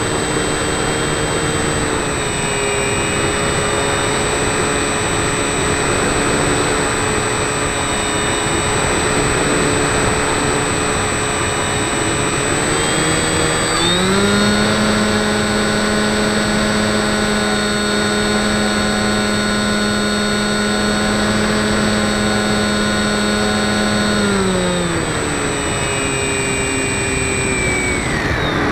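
RC FPV model plane's motor and propeller whining steadily, heard from the camera on board over a rush of wind. About halfway through the pitch jumps up and holds for about ten seconds, then falls back down.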